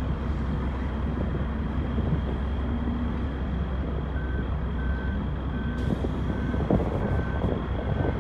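Diesel engine of a Caterpillar wheel loader running with a steady low rumble; about four seconds in, a reversing alarm starts, with evenly spaced single-tone beeps well under a second apart as the loader backs up.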